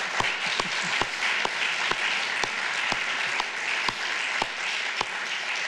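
Audience applause from a seated crowd in a hall: a dense, steady patter of many hands clapping. One person's louder, evenly paced claps, about two a second, stand out close at hand.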